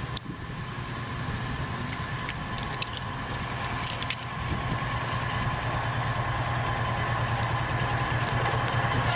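Diesel locomotive engine running with a steady low drone, growing gradually louder as it approaches.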